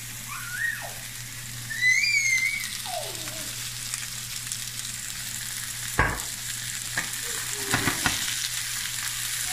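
Shell-on shrimp and minced garlic sizzling steadily in hot olive oil in a frying pan. Short gurgles come as more oil is poured from the bottle in the first few seconds, and a sharp knock about six seconds in, with a few more near the end, comes as the pan is tossed and stirred with a wooden spoon.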